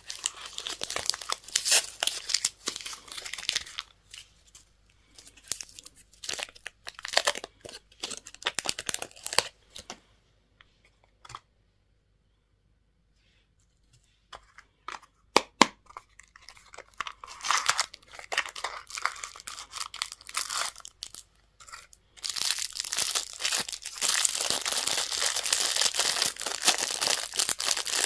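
Candy packaging being torn open and crinkled by hand. It comes in crackling bursts, stops for a few seconds near the middle, and turns to steady, denser crinkling for the last six seconds.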